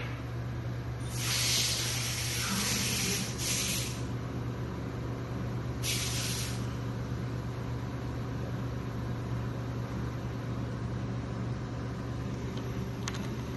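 Automatic cutting machine running with a steady low hum, broken by three short hisses: a longer one about a second in, a brief one near four seconds, and another around six seconds.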